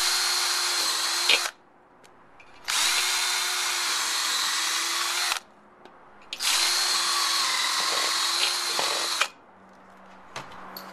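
Handheld power drill boring pilot holes into a pine log through a steel bracket, for lag screws: three steady runs of the drill, each a couple of seconds long, with short pauses between, stopping about nine seconds in.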